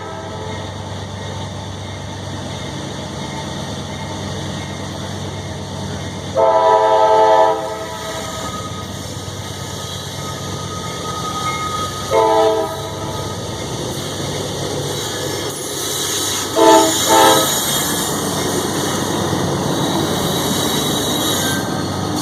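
CSX diesel freight locomotive's multi-chime air horn sounding for a crossing: a long blast about six seconds in, a short one about midway, and two short blasts near the end. Under it the steady rumble of the locomotive and train, growing louder with rising wheel noise in the last several seconds.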